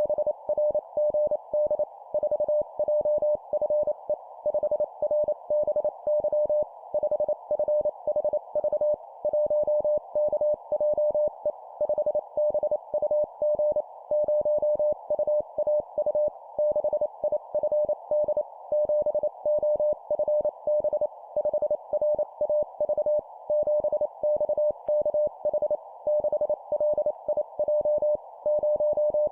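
Morse code (CW) sent at 25 words per minute as a single steady tone keyed on and off in dits and dahs, in four-character groups of a number followed by three letters, with a faint band of hiss around the tone.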